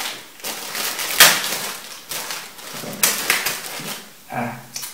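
Clear plastic accessory bag crinkling and rustling as it is handled and opened, with sharp crackles, the loudest about a second in and another about three seconds in.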